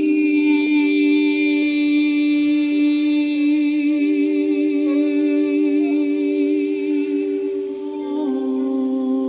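A woman singing a long wordless note into a microphone, wavering with vibrato, over a second steady sustained tone; she moves to a new note near the end.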